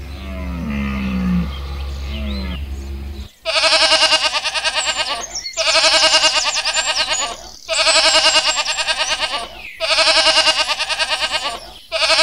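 Goats bleating: a long, quavering bleat about two seconds long, repeated every two seconds, beginning about three seconds in. Before it there is a low rumble.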